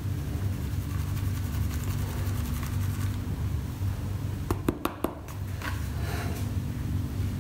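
Water sloshing in a plastic gold pan as it is tipped and worked over a barrel of water, with a quick run of three or four sharp clicks about two-thirds of the way through, over a steady low hum.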